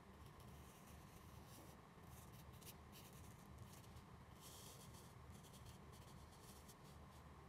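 Faint scratching of a felt-tip marker drawing on paper, in short irregular strokes.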